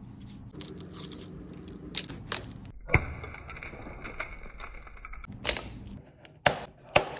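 Shattered iPhone back glass being scraped and chipped off with a metal blade tool: gritty crunching and scraping, with a sharp crack about 3 seconds in and several more cracks near the end.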